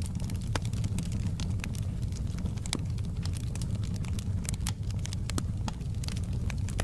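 Wood fire in a fireplace crackling: frequent sharp, irregular pops and snaps over a steady low rumble of the flames.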